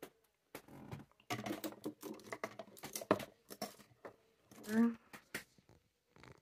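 Small plastic makeup items and containers clicking and rattling as they are handled and set down, in quick irregular clusters. A brief pitched squeak stands out about three quarters of the way through.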